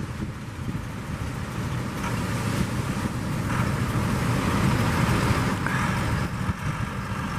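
Tractor engine running as it pushes a boat on its launch plate. The rumble grows louder through the middle, then eases toward the end.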